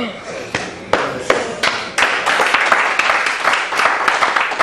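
Spectators applauding: a few scattered claps at first, swelling into dense, steady hand-clapping about two seconds in.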